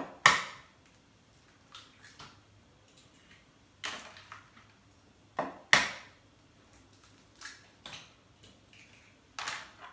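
Raw eggs being cracked one after another on the rim of a small bowl: sharp knocks every few seconds, with fainter taps between.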